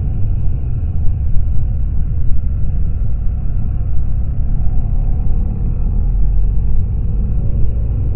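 Muffled, steady low rumble of a BMW R1200GS boxer-twin motorcycle underway, mixed with wind buffeting on the action camera's microphone.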